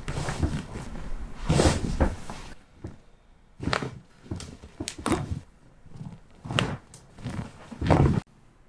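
Chiropractic adjustment: a run of about seven short pops and thuds, with rustling and handling noise in the first couple of seconds. The sound cuts off abruptly near the end.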